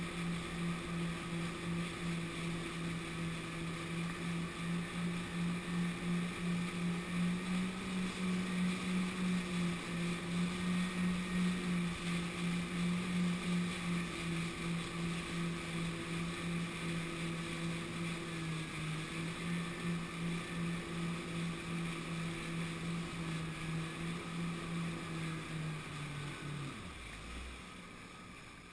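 Small motorboat's engine running steadily at cruising speed, water rushing past the hull. Near the end the engine note drops and cuts out, leaving only the quieter wash of water.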